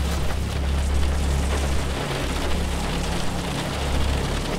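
Steady rain falling on a pickup truck's cab and windshield, an even hiss, over a steady low rumble that drops out briefly about two seconds in and again near four seconds.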